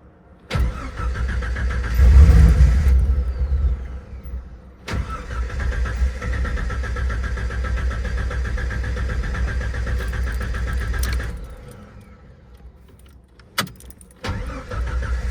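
1988 Jeep Cherokee XJ engine being started: it catches about two seconds in with a brief rise, runs unevenly, then cuts out around eleven seconds; after a click it starts up again near the end. A rough idle and weak start that the owner has not yet traced.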